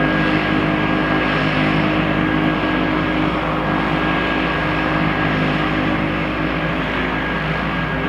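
Cessna 208 Caravan's Pratt & Whitney PT6A turboprop engine running steadily at ground idle after start-up, with a steady high whine over a low drone.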